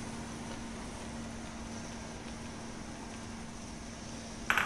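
A steady low mechanical hum, with one short clatter near the end.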